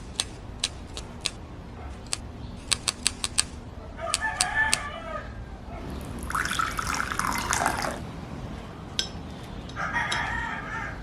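A rooster crowing about six seconds in, with shorter calls around four and ten seconds in. A run of sharp ticks comes in the first few seconds.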